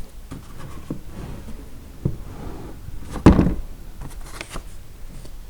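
Hard plastic tool-set case being opened: scattered clicks and knocks from the latches and lid, with one loud sharp clack about three seconds in.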